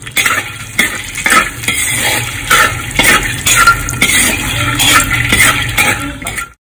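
A perforated metal skimmer scraping and clinking against a metal wok as it stirs fox nuts (makhana) frying in it, with dense irregular scrapes and knocks. The sound cuts off suddenly near the end.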